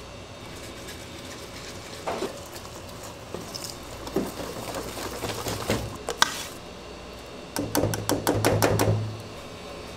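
Wire whisk beating frying batter in a stainless steel bowl, clinking and scraping against the metal. A fast run of about a dozen strokes near the end is the loudest part.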